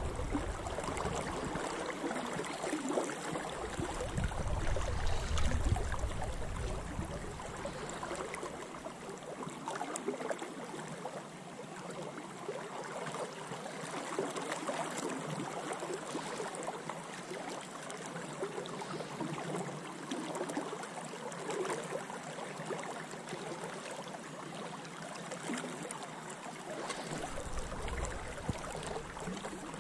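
Steady rush of a flooded spate river in full flow, with a low rumble about four seconds in and again near the end.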